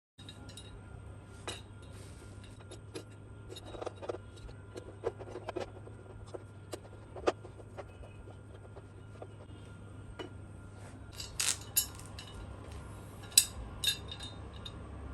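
Scattered light clicks and clinks of hard objects being handled and set down, a few sharper ones near the end, over a steady low hum.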